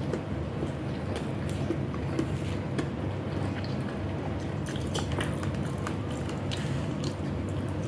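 A person chewing food, with scattered small wet clicks and smacks over a steady low background hum.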